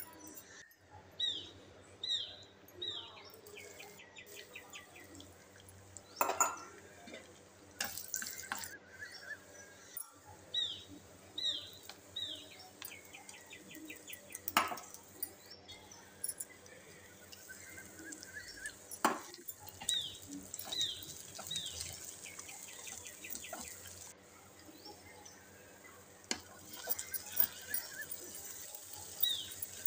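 Cooking in a clay pot: a ladle knocking and scraping against the pot while vegetables fry with a faint sizzle. A bird repeats the same phrase, three quick falling chirps and a short trill, about every ten seconds.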